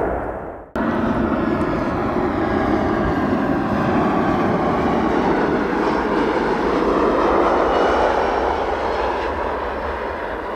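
Jet airliner engines running close by: a steady rush of engine noise with faint whining tones sliding in pitch. The sound fades and breaks off just under a second in, then comes back abruptly.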